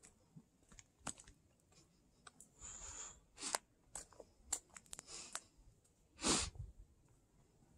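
Footsteps crunching on a gravel trail: a string of uneven crunches and scuffs, with one louder crunch about six seconds in.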